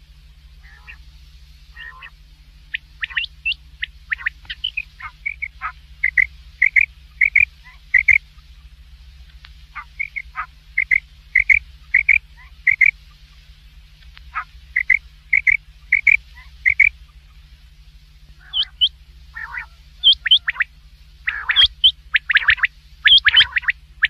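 Common quail calling: short, sharp notes repeated in quick series, broken by pauses of a second or two, growing denser and louder near the end, over a steady low hum.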